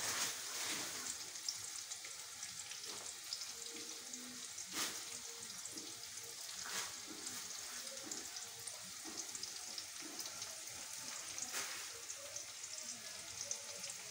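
Chopped jute leaves cooking in a little boiling, nearly reduced water in a metal kadai: a steady sizzling hiss, with a few sharp clicks scattered through it.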